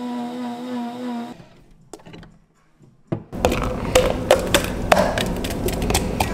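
HIMIX-3 commercial blender running at a steady speed with an even whine, cutting off about a second in. After a short quiet, thick green grape smoothie is poured from the blender jar into a plastic cup, with a run of sharp clicks and knocks from the jar.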